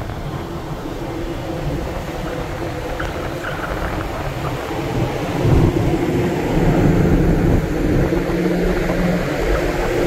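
Strong wind rumbling over the microphone on a ferry's open deck at sea, with a low steady drone from the ship underneath. The drone gets louder about halfway through.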